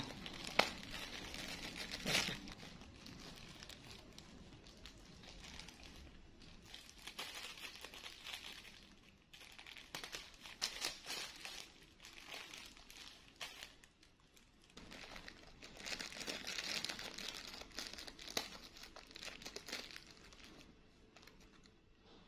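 Clear plastic bag rustling and crinkling as two monkeys paw at and tug on it, in irregular bursts, with a few sharper crackles in the first couple of seconds.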